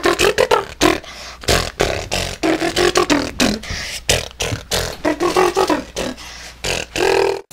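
Beatboxing: rapid mouth-made percussive clicks and pops mixed with short voiced tones in an uneven rhythm, cutting off suddenly at the end.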